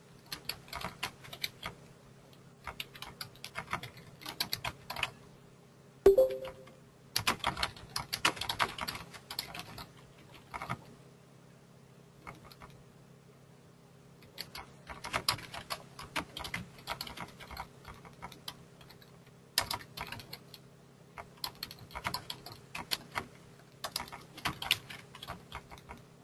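Typing on a computer keyboard in bursts of a few seconds with short pauses between, over a steady low hum. One louder sharp knock comes about six seconds in.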